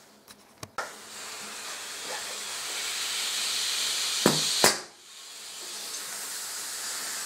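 Compressed air hissing steadily and growing louder over a few seconds, with a few small clicks at the start and two sharp clicks about a third of a second apart near the middle, after which the hiss drops briefly and builds again.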